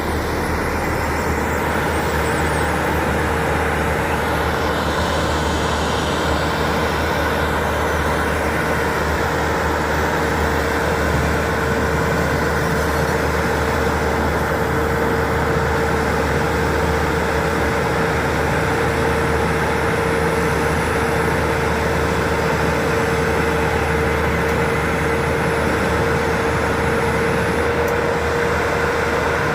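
Heavy diesel construction machinery running steadily, a constant engine rumble with a steady whine above it.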